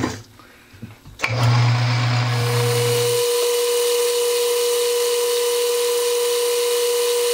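Small metal lathe starting up and running steadily with a facing tool at the end of a steel bar: a few clicks, then about a second in a low hum and a steady whine. The hum drops out about two seconds later, leaving the whine.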